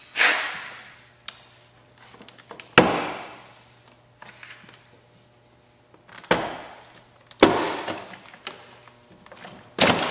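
Plastic trim clips of a 1995 GMC Sonoma's interior door panel popping loose as the panel is pried off the door: about five sharp snaps a second or more apart, with fainter clicks between.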